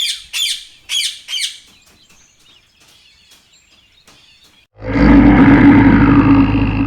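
A small bird chirping, about four quick falling chirps, then a faint stretch. About five seconds in, a loud, low, rough animal call begins and holds steady.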